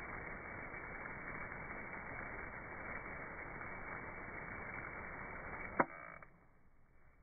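Steady hiss of a garden hose jet spraying water over a lawn. Near the end there is a single sharp click, and the spray sound cuts off to near quiet.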